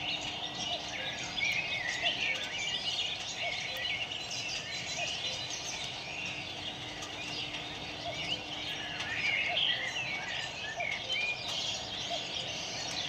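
Many small birds chirping and twittering together, a steady dense chatter of short quick calls.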